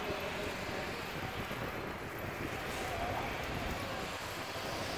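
Wind buffeting the microphone over a steady hum of street traffic.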